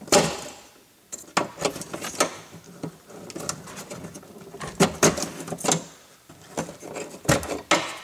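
Irregular clicks, knocks and light clattering of hands working inside a Honda CR-V's door cavity. The plastic electrical connectors of the door lock actuator are being unclipped and the wiring harness pulled loose. The sharpest click comes right at the start, and there is a run of knocks about five seconds in.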